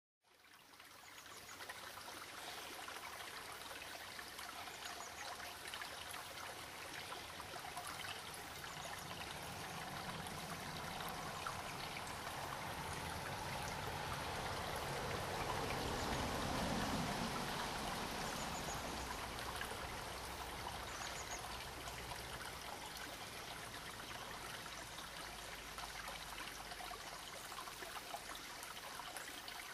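Shallow creek trickling over stones: a steady, quiet water sound that fades in over the first second or two and swells a little around the middle.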